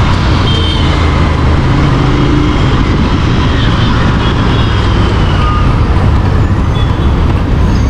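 Royal Enfield Interceptor 650's parallel-twin engine and exhaust running steadily under way.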